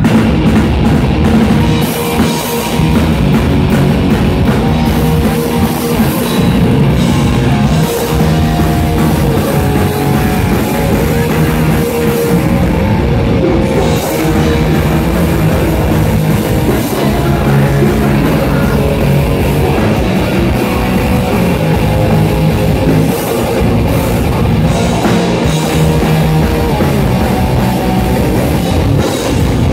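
Rock band playing live and loud: electric bass, electric guitar and a drum kit, with a vocalist singing into a microphone over the PA.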